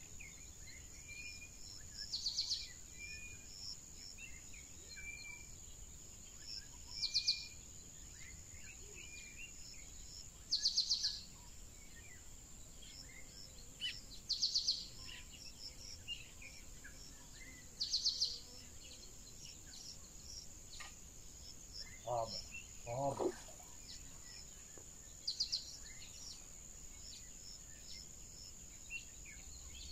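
Lakeside wildlife ambience: a steady high insect drone, with a bird's short trilled call repeating every three to four seconds. Two short, lower sounds come about three-quarters of the way through.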